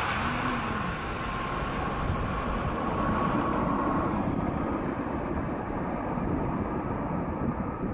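Boeing 747 jet engines as the airliner passes low overhead: a rushing jet noise with a whine that falls slightly in pitch and fades out about four seconds in, leaving a steadier rumble.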